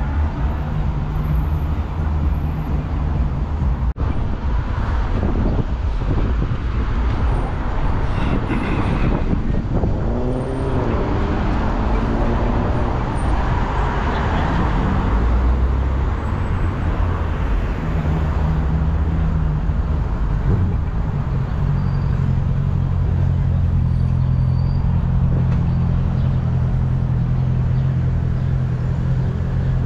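Road traffic: cars driving past, with a swell of tyre and engine noise about halfway through and a steady low engine hum in the second half.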